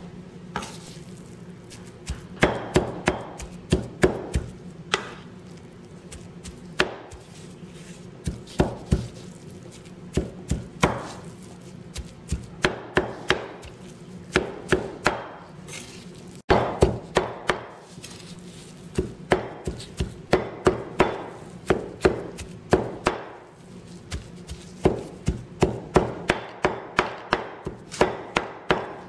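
A cleaver chopping ground pork and salted fish on a thick wooden chopping board, mincing them together. The strikes come in quick runs of several blows with short pauses between.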